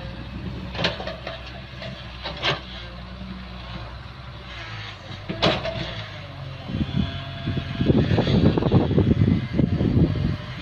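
Daewoo Solar 130W wheeled excavator's diesel engine running steadily, with a few sharp metallic clanks from the bucket and boom. In the last third it grows louder with a dense rumbling, scraping noise as the bucket works the soil.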